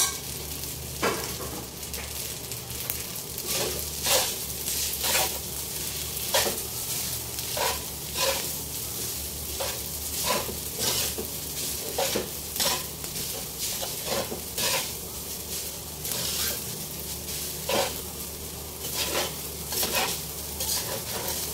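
Cooked rice stir-frying in a steel wok: a steady sizzle, with the spatula scraping and knocking against the pan roughly once a second as the rice is turned.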